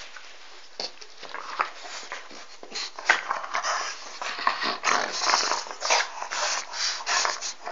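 A French bulldog and another dog playing over a rope toy, making many short, irregular breathy sounds that come thicker in the second half.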